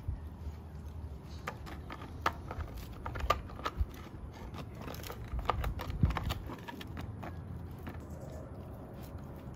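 Golden retriever gnawing a large beef cheek chew: irregular crunches and clicks of teeth on the hard chew, some much louder than others.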